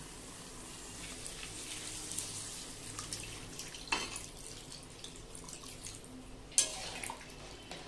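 A glass of water poured into a hot kadai of spiced chicken and potatoes, splashing and hissing as it hits the masala. A metal spatula clanks sharply against the pan about four seconds in and again near the end.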